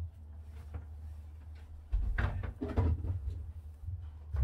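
Things being handled in a small boat cabin: a cluster of knocks and rattles about halfway through and a sharp knock at the end, like a cupboard or lid shutting, over a steady low rumble.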